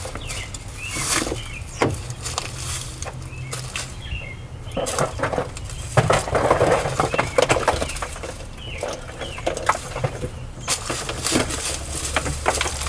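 Handling noise: scattered rustles, clicks and knocks of things being moved about, with a few faint high chirps.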